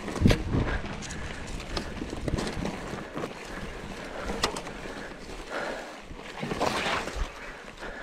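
Trek Fuel EX 7 full-suspension mountain bike rolling over a rough forest singletrack: tyre noise on dirt with irregular knocks and rattles from the bike as it goes over roots and rocks, with louder clattering just after the start and again around seven seconds in.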